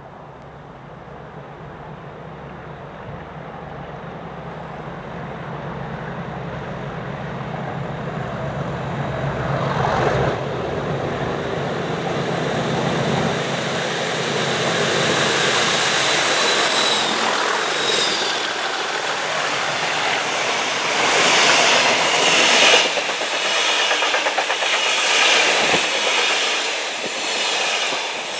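A pair of Class 37 diesel locomotives with English Electric V12 engines comes in and passes, growing steadily louder. Then the wagons roll by close up, with a rhythmic clatter of wheels over the rail joints.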